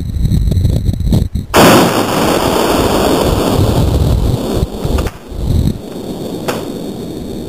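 A single shot from a vz.24 Mauser rifle in 8x57mm about a second and a half in, very loud, followed by a long echo that dies away over about three seconds.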